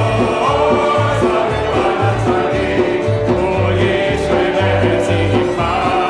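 A small group of voices singing a Jewish liturgical psalm melody in unison, accompanied by a hand drum keeping a steady beat, acoustic guitar, double bass and electric guitar.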